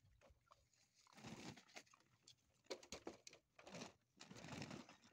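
Faint scattered crunching and rustling from a litter of XL American Bully puppies eating kibble and scrambling about on wood-chip mulch, in a few short bursts after the first second.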